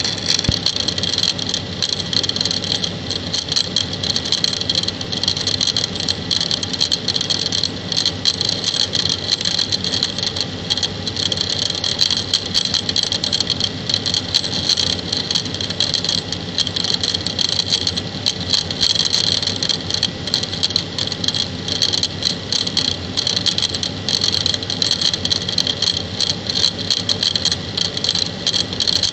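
Drain pump of a 1994 Candy Aquamatic 3 washing machine running with a loud, steady, rapid knocking rattle, which the owner takes as a sign that the pump is worn and due for replacement.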